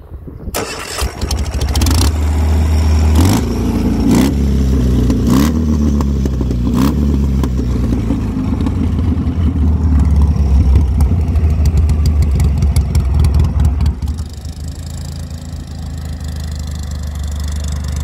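Ural sidecar motorcycle's flat-twin engine starting about half a second in and running loudly. Its revs rise and fall several times between about three and seven seconds in, with sharp clicks at each change. About fourteen seconds in it drops to a quieter, steady lower running.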